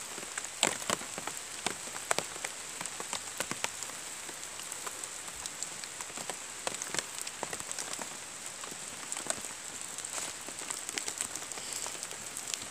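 Steady rain hissing, with individual drops tapping close by at irregular moments.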